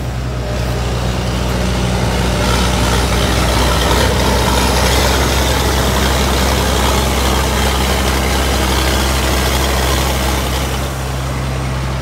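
Rice combine harvester's diesel engine running hard under load as the machine, bogged in deep paddy mud, tries to drive out. The engine noise eases off about eleven seconds in.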